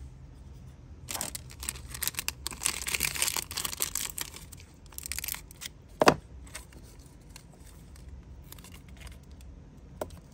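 Wrapping crinkling and tearing as it is handled, in rustling spells over several seconds. Then a single sharp click about six seconds in, followed by a few light clicks.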